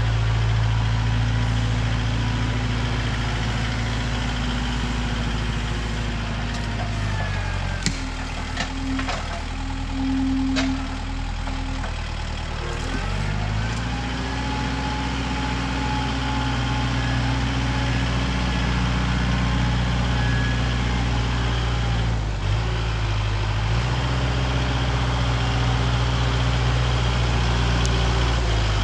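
A heavy engine running steadily at a constant speed. Its note drops lower for a few seconds about eight seconds in, with a few sharp knocks, then comes back up, and dips once more briefly past twenty seconds.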